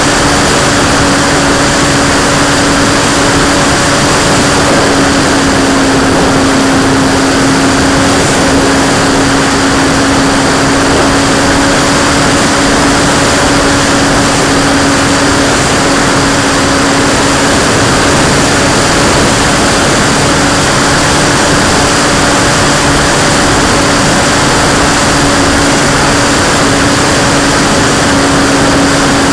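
Radio-controlled model P-51's motor and propeller running at one steady pitch in flight, under heavy wind rush over the airframe.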